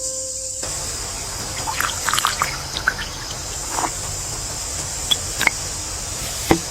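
Steady rain hiss with scattered drips and small splashes.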